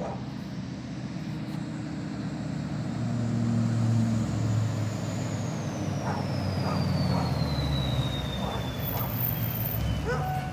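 Duramax diesel pickup truck pulling up slowly while towing a loaded car trailer, its engine running and growing louder as it approaches. A thin high whine falls steadily in pitch through the second half.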